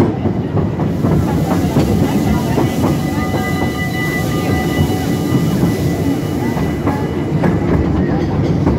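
Open passenger carriage of a park railway train running along the track: a steady rumble of the wheels with a rapid clatter of clicks. A faint thin squeal and hiss come in for a few seconds in the middle.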